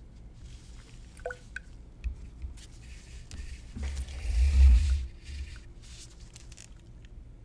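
A glass graduated cylinder of water being handled: light clicks about a second in as the small CPVC plastic piece slides down against the glass, then the cylinder is tipped upright and set down on its plastic base with a dull knock and rubbing about four to five seconds in.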